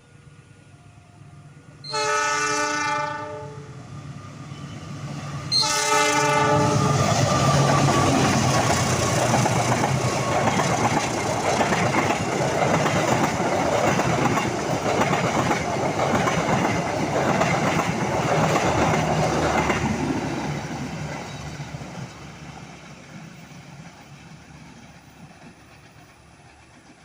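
Train horn sounding two blasts, each a little over a second, the second running straight into the noise of the train passing close by. The wheels clatter over the rail joints for about fifteen seconds, then the sound fades away toward the end.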